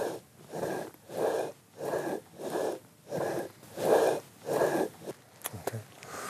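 Stone rotary quern being turned by its wooden handle, grinding grain into flour: the upper stone rasps on the lower stone in a steady rhythm of about one and a half grinds a second. The grinding stops about five seconds in, followed by a couple of light knocks.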